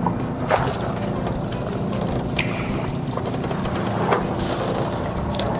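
Fishing boat's engine running steadily, with a few sharp knocks from a plastic fish basket and water sloshing as the catch is rinsed in seawater.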